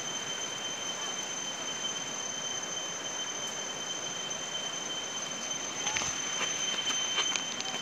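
Shallow stream rushing steadily over gravel under a continuous shrill insect drone held at one high pitch, typical of rainforest cicadas. A few sharp clicks come near the end.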